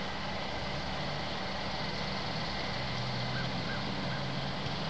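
Steady outdoor background of a distant traffic rumble with a low hum, and a few faint short high chirps in the second half.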